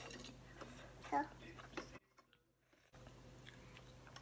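Quiet eating sounds: chewing, with a sharp click of cutlery on a plate at the very start and a brief murmur of voice about a second in. The sound cuts out completely for about a second in the middle.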